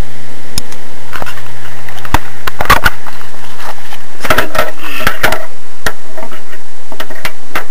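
Sharp metallic clicks and knocks of a 3/8-drive ratchet and 13/16 spark plug socket tightening a new spark plug into a Briggs & Stratton lawn mower engine. The clicks come in scattered bunches, busiest about two and a half seconds in and again around four to five seconds.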